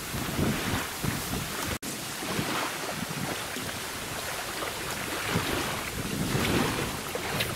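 Gusty wind buffeting the microphone, with choppy water lapping at the reedy bank. The sound drops out for an instant about two seconds in.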